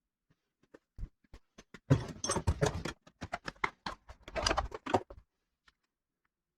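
A string of irregular clicks and knocks from hard objects being handled, with two busier stretches of clattering, stopping about a second before the end.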